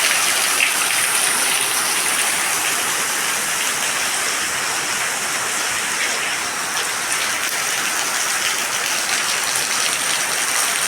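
Water coming down indoors in a steady rain-like patter and splash, called rain and a home waterfall.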